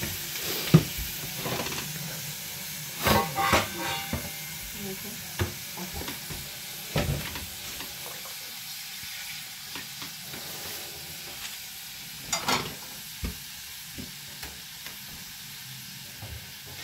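Pork and vegetables sizzling in a frying pan as they are stir-fried, with a steady hiss and several sharp knocks of the utensil against the pan.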